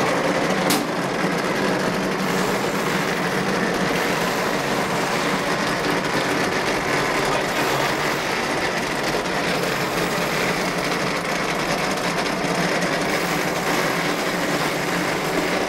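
Automatic wall-rendering machine running as its plastering hopper climbs the mast, spreading gypsum mortar onto a block wall: a steady mechanical clatter, with one sharp click about a second in.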